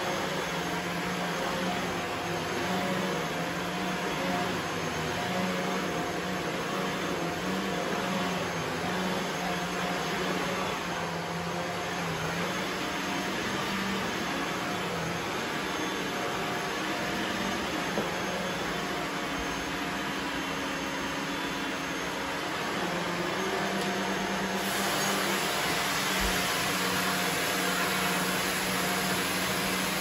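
Shark upright vacuum cleaner running continuously while pushed back and forth over carpet: a steady motor hum under a loud rush of air, with the hiss turning brighter near the end.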